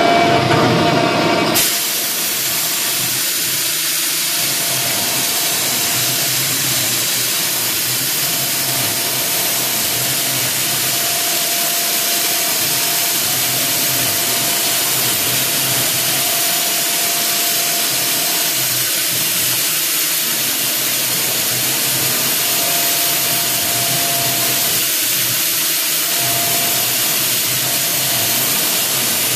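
CNC router spindle running as a 20-degree engraving bit cuts letters into a composite panel: a steady hiss with a faint whining tone that comes and goes. A short, different humming sound comes just before it at the very start.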